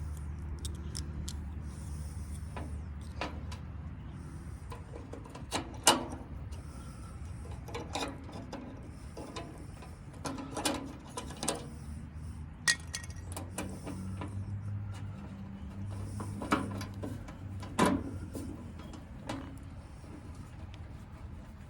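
Scattered metallic clicks and knocks of grill panel parts and screws being handled and fitted, over a low steady hum. The sharpest knocks come about six seconds in and again near eighteen seconds.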